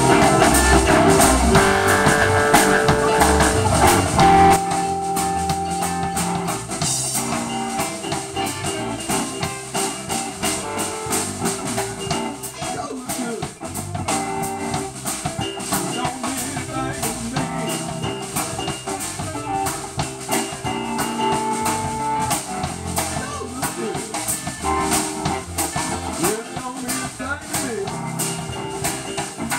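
Live blues band playing, with electric guitars, bass, drum kit and keyboard. The full band is loud for the first few seconds, then drops to a quieter passage of guitar lines over steady drums and cymbals.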